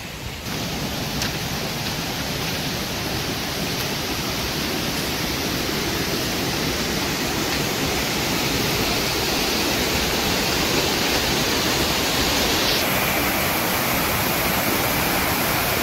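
Steady rush of water from a rocky mountain stream cascading near a waterfall, a dense even hiss that grows gradually louder.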